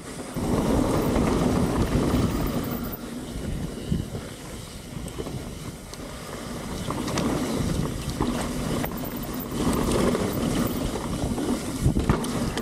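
Wind rushing over an action camera's microphone during a mountain bike descent, with a loud rumble that rises and falls and a few sharp knocks from the bike over rough ground.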